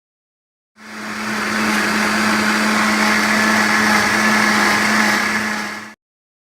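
A small electric motor running steadily with a constant hum and a hiss. It swells in about a second in and cuts off suddenly near the end.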